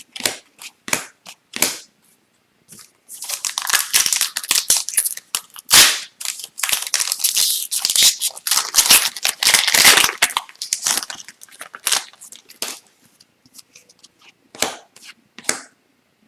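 Foil wrapper of a hockey card pack being torn open and crinkled, a dense crackling run of about nine seconds that starts about three seconds in. Before and after it come scattered light clicks and taps of cards being handled.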